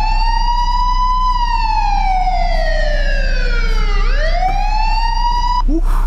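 Wailing siren alarm played by a home-made anti-theft script. It rises in pitch over about two seconds, falls slowly for nearly three, starts rising again, then cuts off suddenly near the end as the script stops the alarm.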